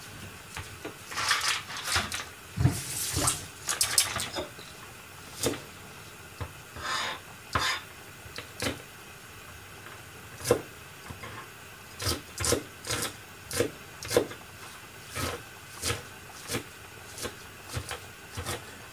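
Kitchen work sounds: tap water running into a sink in the first few seconds, then a string of short, irregular clinks and knocks of utensils and dishes.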